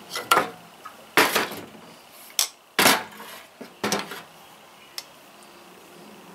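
Small metal engine parts and hand tools clinking and clattering against each other and a bench: about six separate sharp knocks, the loudest a little over a second in and just before three seconds in.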